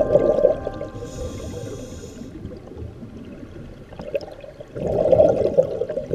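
Scuba diver breathing through a regulator underwater: a hissing inhalation lasting about a second, then a lull, then a rumbling gush of exhaled bubbles near the end. Heard through a camera's waterproof housing.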